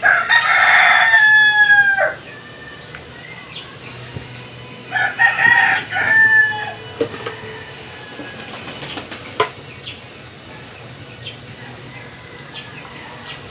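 A rooster crowing twice: one long crow right at the start and another about five seconds in, each held for nearly two seconds and dropping at the end. A few light clicks sound between and after the crows.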